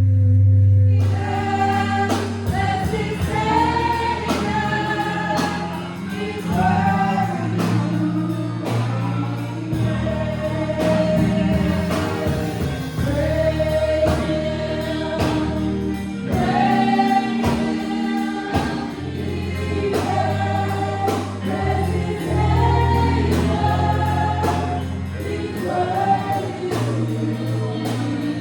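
Gospel choir singing with a band behind it, bass and drums keeping a steady beat; the full sound comes in about a second in.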